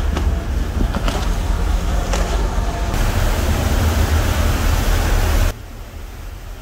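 Rushing water of a fast boat's churning wake with wind buffeting the microphone over a heavy low rumble. The noise drops sharply about five and a half seconds in to a quieter low wind and water rumble.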